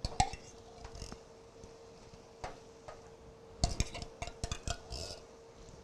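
A kitchen utensil clinking and knocking against a skillet while ingredients are worked in: a few scattered clinks, then a quick run of them just past the middle, over a faint steady hum.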